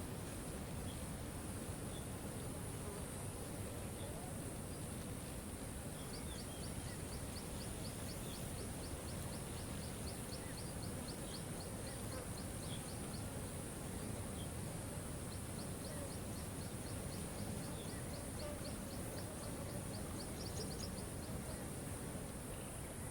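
Steady rush of a waterfall. Twice a rapid high trill of short notes, about five a second, each run lasting several seconds, with scattered faint chirps.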